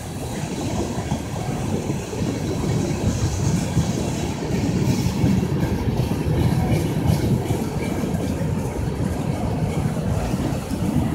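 CN freight train cars rolling past, a steady rumble of wheels on rail.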